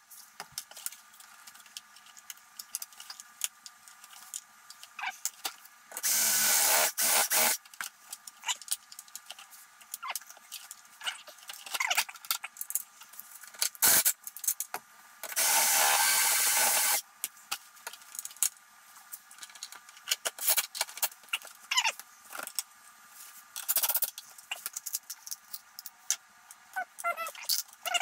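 Cordless drill running twice, each time for about a second and a half, with scattered clicks and light metallic clinks of small parts and tools being handled in between.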